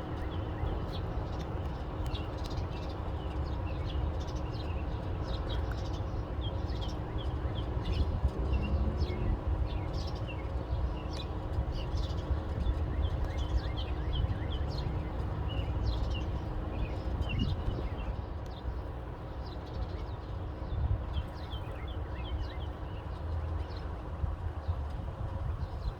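Birds chirping and singing in many short calls over a steady low rumble.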